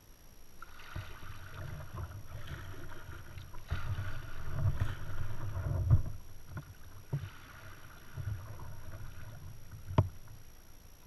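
Kayak paddling: the paddle dipping and pulling through the water in uneven swells of splashing and dripping, with the hull rumbling against the camera mount. Two sharp knocks stand out, about six seconds in and about ten seconds in, typical of the paddle striking the kayak.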